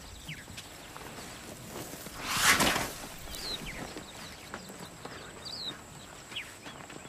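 Birds give scattered short, falling chirps. About two and a half seconds in there is one soft whooshing swell, the loudest sound here.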